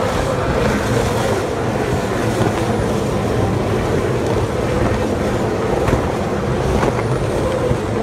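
A field of V8 Supercars racing past one after another down the front straight, their V8 engines making one loud, unbroken din.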